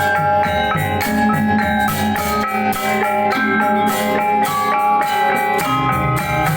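Balinese gamelan gong ensemble playing: bronze metallophones ring in quick, changing note patterns over drums, with crisp cymbal strokes on a steady pulse.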